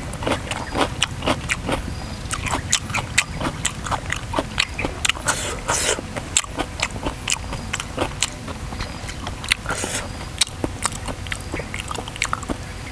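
Close-miked eating of raw shrimp in spicy sauce: wet, smacking chewing clicks, several a second, irregular and continuous.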